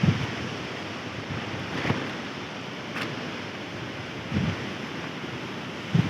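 Strong wind rushing steadily, with wind buffeting the microphone, a few soft low bumps and one short click about three seconds in.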